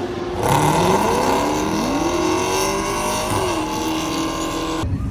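Drag-racing cars launching and accelerating hard down the strip, engine pitch climbing repeatedly through the gears; the sound starts and cuts off suddenly.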